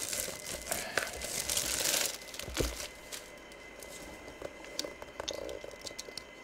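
Plastic shrink wrap crinkling and tearing as it is pulled off a cardboard box. The crinkling is densest in the first two seconds, then gives way to faint scattered clicks and rustles as the box is handled.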